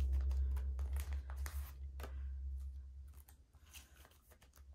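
Plastic photocard binder sleeves crinkling as cards are slid into the pockets and paper sticky-note placeholders are pulled out: a quick run of short crinkles and taps, thinning out after the first couple of seconds.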